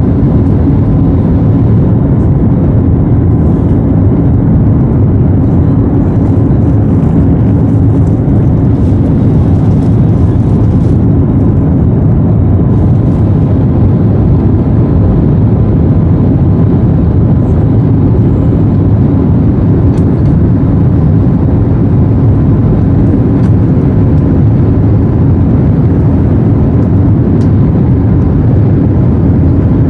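Jet airliner cabin noise during the climb after take-off: the engines and rushing air make a loud, steady, deep drone with a faint high hum, heard from inside the passenger cabin.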